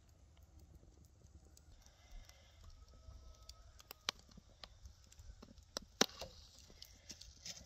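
Wood embers in a metal brazier crackling with scattered sharp pops, the loudest about six seconds in, as a beef tongue is held over the coals to singe it.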